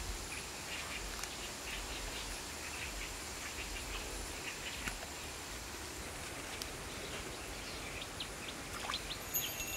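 Rural outdoor ambience: a steady background hiss with scattered short bird chirps and a faint, steady high-pitched whine, and a brief held whistle-like call near the end.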